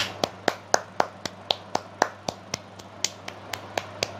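A single person clapping, about four evenly spaced claps a second, over a low steady hum.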